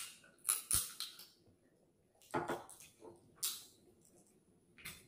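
Close-miked eating sounds: chewing and mouth noises, and fried seafood being bitten and pulled apart by hand. They come as a scatter of short, separate bursts with quiet between them.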